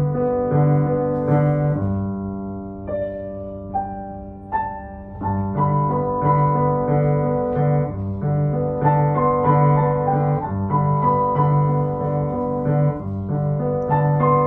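Steinway grand piano played solo: held chords and a melody over a steadily repeated low accompaniment figure, thinning and softening about two seconds in, then filling out and growing louder again after about five seconds.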